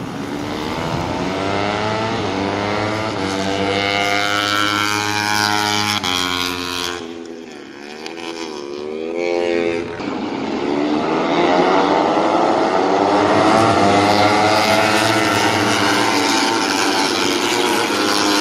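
Racing motorcycles passing at high revs, their engine pitch climbing through the gears. Midway the sound drops and one engine's pitch dips and rises again through gear changes, then a louder group passes.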